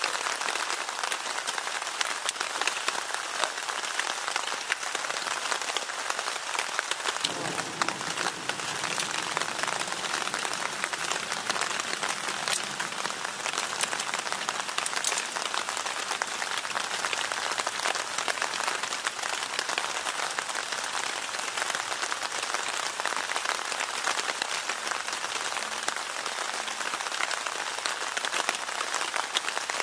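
Steady rain falling, a dense patter of drop hits that grows fuller in the low end about seven seconds in.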